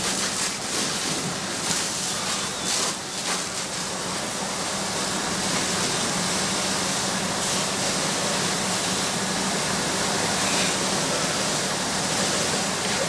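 Steady rushing spray of a fire hose stream pouring into a burning, collapsed garage, with a few sharp crackles in the first three seconds and a low steady hum underneath.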